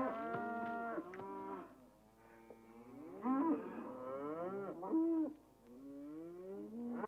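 Penned livestock calling over one another: a string of overlapping long calls that rise and fall in pitch.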